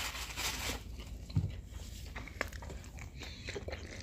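Close-miked chewing and small mouth sounds of people eating flaky spinach-and-feta pastry, with sips from a drink bottle's mouthpiece. There are scattered small clicks and a soft low thump about one and a half seconds in.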